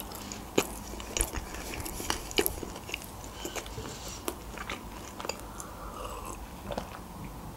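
A person chewing a mouthful of food, with many small wet clicks and crackles of the mouth, then drinking from a glass about six seconds in.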